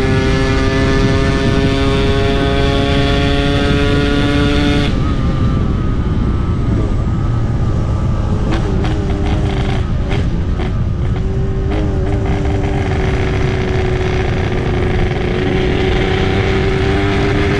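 Yamaha RX-King two-stroke single-cylinder motorcycle engine running under way in a 'ngorok' (snoring) tune. A held note climbs slowly in pitch for about five seconds and then drops off suddenly as the throttle closes. An uneven, rougher stretch with wind noise follows, and a steady lower note settles in again about twelve seconds in.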